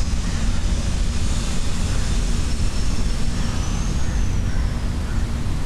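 Steady low rumble of outdoor background noise, with a faint high whine that rises and falls about four seconds in.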